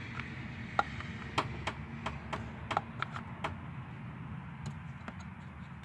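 Light, irregular clicks and taps from a plastic funnel knocking against the engine's oil filler neck as it is handled, about eight in the first few seconds, then a few fainter ones, over a low steady hum.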